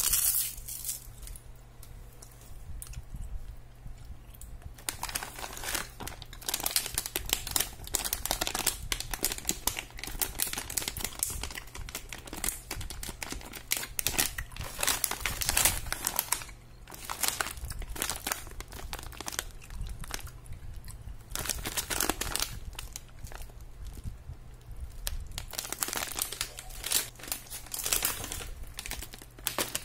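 Clear plastic candy bags crinkling as they are handled and moved, in bouts of dense crackling with short pauses, starting about five seconds in.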